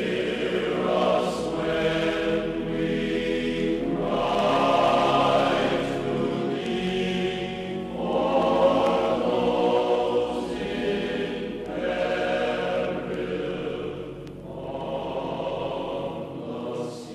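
Background music of a choir singing slow, sustained phrases that swell and fade every couple of seconds.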